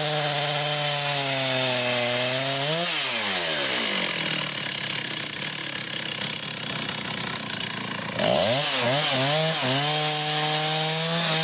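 Chainsaw running at high revs. Its engine note drops about three seconds in, stays without a clear pitch for several seconds, then comes back up with a wavering pitch about eight seconds in and settles into a steady high whine.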